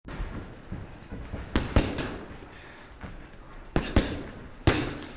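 Boxing-glove punches landing in a gym: six sharp, echoing smacks in quick groups, three together, then two, then one more.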